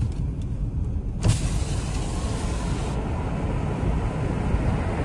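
A steady low rumble, broken about a second in by a sudden boom whose hissing tail lasts a second or two: an explosion at the struck oil refinery.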